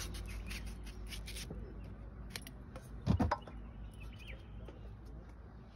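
Knife slicing and scraping through a raw green mango, in faint scrapes and clicks, with one dull thud about three seconds in as a mango half drops into the steel bowl.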